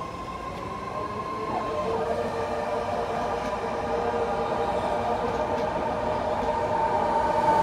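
BART train moving along the station platform: a continuous rumble with several steady whining tones, growing louder throughout.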